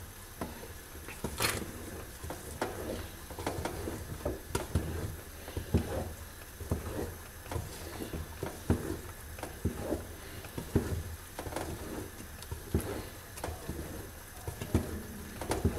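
A wooden spoon stirring a thick, hot sesame-and-hazelnut paste in an aluminium pot, with irregular soft knocks and scrapes against the pot and a faint sizzle from the paste, which has started to bubble. A low steady hum runs underneath.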